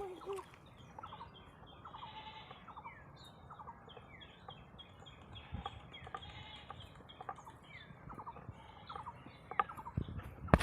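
Outdoor ambience with many short, repeated bird chirps and two longer animal calls about two and six seconds in, with a few sharp knocks near the end.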